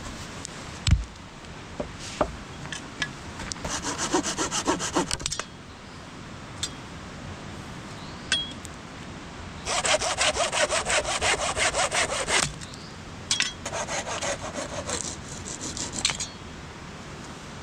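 Hand saw cutting wood in three bouts of quick back-and-forth strokes, about four a second, the middle bout the longest and loudest. A single sharp knock comes about a second in, with a few light clicks between the bouts.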